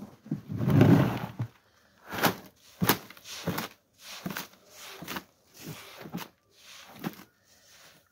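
Soft footsteps, about every two-thirds of a second, after a longer burst of rustling about a second in.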